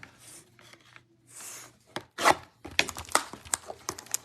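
Trading card pack being opened and the cards handled. There is a couple of brief papery rustles and tears, then a quick run of light clicking and flicking as the cards are riffled through.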